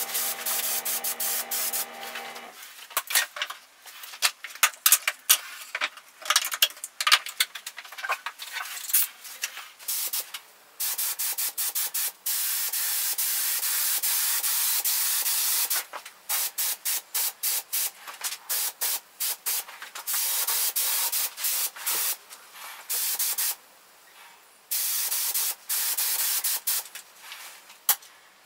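A gravity-feed spray gun run on compressed air hisses as it sprays paint, in bursts at each pull of the trigger. At first there is a scatter of short bursts and clicks, then longer sprays of several seconds broken by quick on-off pulses. A steady low hum ends about two and a half seconds in.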